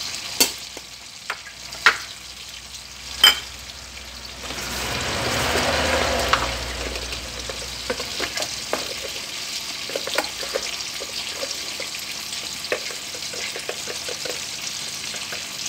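Pot of silver pomfret braising broth boiling hard, a steady bubbling and sizzling with small crackles throughout. Three sharp clicks come in the first few seconds, and the bubbling swells louder for about two seconds around five to six seconds in.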